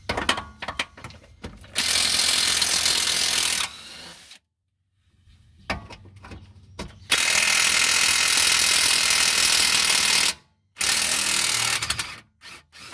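Cordless power tool spinning a socket on the rear axle-shaft bolts at the differential, in three bursts of about two, three and one seconds. Short clicks and clatter of the socket and bolt come between the bursts.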